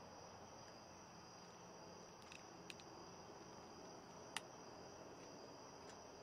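Crickets trilling steadily and faintly. A few light clicks from a long-reach lighter break through, the sharpest about four seconds in.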